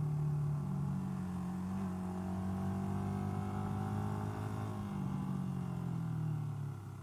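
Honda XLR250R's single-cylinder four-stroke engine running under way, its pitch climbing gently from about two seconds in and falling back about five seconds in, then easing off near the end.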